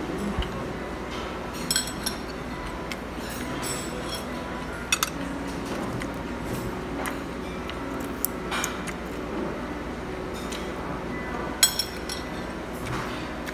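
Chopsticks clinking against dishes and each other, about a dozen scattered sharp clicks, a few in quick pairs, over a steady restaurant background hum.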